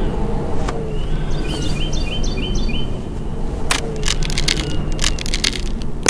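A run of sharp cracking and crackling, like plaster or masonry splitting, begins a little after the middle and lasts about two seconds, the sound of the wall cracking open. A low, steady background noise runs underneath, and a short series of bird chirps comes earlier.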